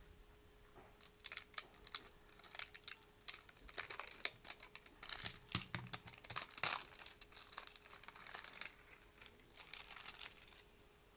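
Handling noises: an irregular run of crinkling and small clicks from about a second in until near the end, densest in the middle, over a faint steady hum.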